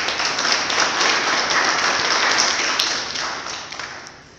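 Audience applauding: many hands clapping at once, fading away over the last second or so.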